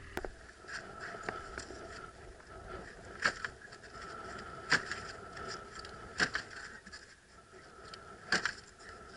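Sharp knocks at irregular intervals of about one and a half to two seconds as hands work on an Arctic Cat snowmobile's track, tunnel and running board during a trailside repair, over a faint steady high whine.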